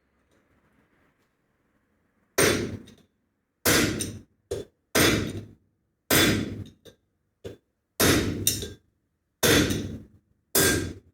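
Hammer blows on a brass drift, knocking a bearing out of a Land Rover Series 2 differential case held in a vise. About seven heavy metallic strikes come roughly every second and a quarter, each ringing briefly, with a few lighter taps between; they start a couple of seconds in.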